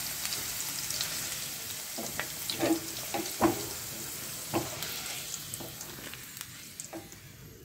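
Diced potatoes sizzling as they fry in hot mustard oil, with a wooden spatula knocking and scraping against the pan as the pieces are stirred and lifted out. The sizzle dies down toward the end as the pan empties.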